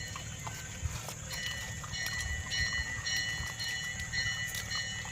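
Dogs eating: a mother dog and puppies chewing and lapping from a dish, heard as small irregular wet clicks and taps. A steady high whine comes in about a second in and runs on.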